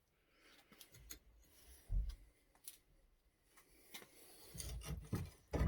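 A few faint clicks and dull knocks from metal parts being handled, with soft knocks and rustling gathering toward the end.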